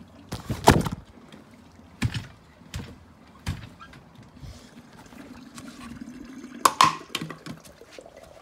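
A handful of sharp knocks and thuds at irregular intervals. The loudest comes about a second in and a close pair comes near the end, with faint rustling between them.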